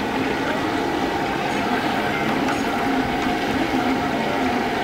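Chicken pieces deep-frying in a large steel kadai of hot oil, a steady sizzle.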